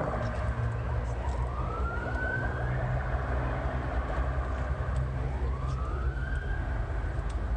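A siren wailing, its pitch rising and falling in slow cycles of about four to five seconds, over a steady low rumble.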